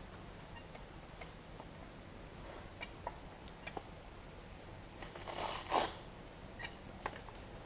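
Sandpaper, 120 grit, rubbing on dried body filler by hand: a few faint scrapes and ticks, then one louder rasping stroke lasting about a second just past halfway.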